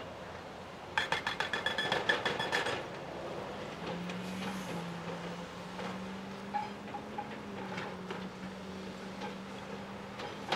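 Excavator-mounted hydraulic impact hammer pounding rock in a fast burst of metallic blows, about eight a second, lasting about two seconds. After it stops, a steady low engine hum from the excavators runs on, with scattered knocks of rock.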